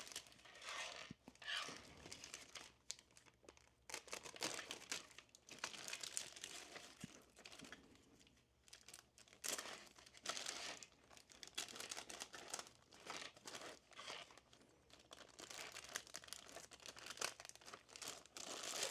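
Plastic packaging crinkling and tearing in irregular bursts as the parts of a small figure kit are unwrapped and handled.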